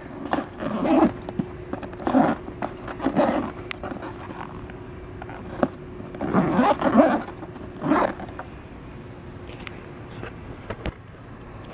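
Zipper of a black fabric rear track bag on a snowmobile tunnel being pulled in about five short strokes, with clicks of the zipper pull and bag handling in between.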